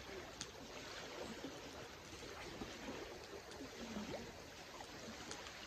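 Steady, low outdoor noise haze, with faint distant voices about four seconds in and a couple of faint ticks.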